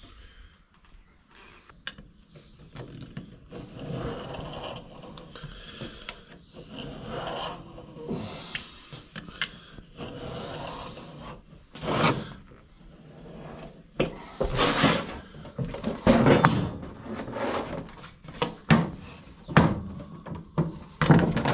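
Utility knife scoring a vinyl backsplash tile along a metal ruler: a series of scraping cuts with knocks from the tile and ruler being handled. The strokes are sparse at first and louder and closer together in the second half.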